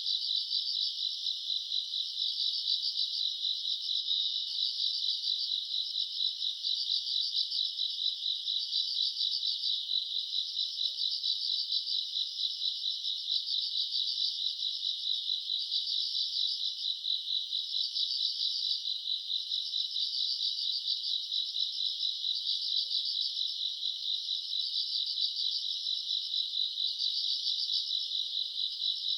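A night chorus of crickets and other grass insects: a steady, high-pitched, rapidly pulsing trill that swells and eases every second or two.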